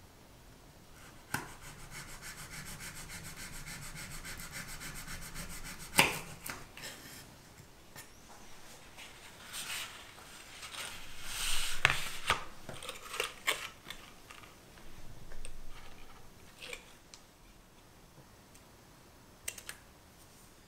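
A small knife saws through crisp baked puff-pastry twists on a wooden board in rapid, even strokes, ending with a sharp knock of the blade on the board about six seconds in. Scattered handling rustles and clicks follow, and scissors snip a ribbon near the end.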